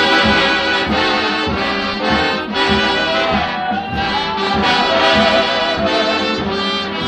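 Background music led by brass instruments over a steady beat of about two a second.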